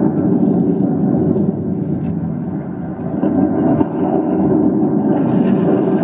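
Muffled, boomy recorded dance music played over the hall's speakers and picked up from the audience, dipping a little midway before coming back up about four seconds in.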